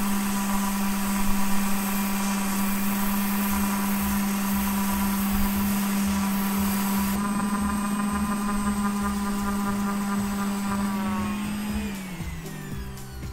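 Angle grinder running steadily with an abrasive disc, grinding down the glue-covered magnet rotor of a brushless DC solar pump motor so that it clears the stator. About 12 seconds in, the grinder is switched off and its whine falls in pitch as it spins down.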